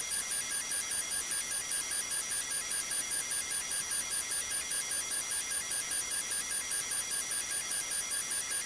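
Electronic drone music: a steady cluster of high-pitched tones over a hiss, several of the tones pulsing rapidly on and off, unchanging throughout.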